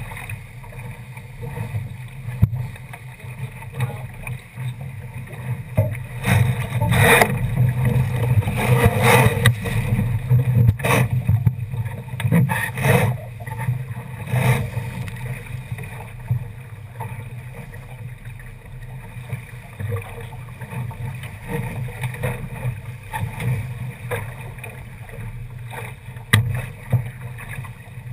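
Water rushing and splashing along the hull of a Mercury-class sailboat sailing through small waves, over a steady low rumble, with a run of louder splashes in the first half.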